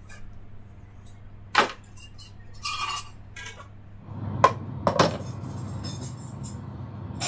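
Kitchen clatter: scattered sharp clinks and knocks of pans and a glass pan lid being handled, over a steady low hum that grows louder about four seconds in, with a louder knock at the end.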